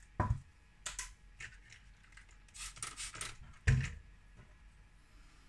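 Hands handling small hard objects on a hard surface: a sharp knock just after the start and another about three and a half seconds later, with short scraping, crinkling sounds between them.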